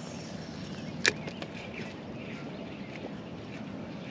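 Steady rush of flowing river water, with one short, sharp knock about a second in.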